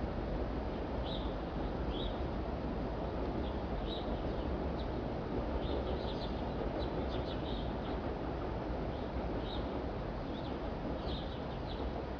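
Small birds chirping in short, high calls scattered irregularly throughout, over a steady low rush of outdoor city background noise.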